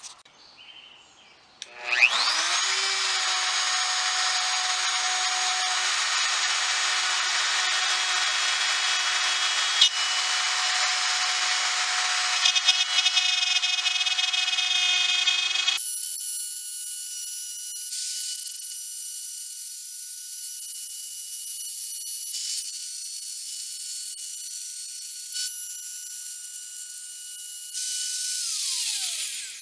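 Bosch plunge router spinning up about two seconds in with a quick rising whine, then running steadily at a high pitch while its small templating bit cuts a maple inlay patch against a template. About halfway through the sound abruptly jumps to a much higher pitch. Near the end the motor winds down with a falling whine.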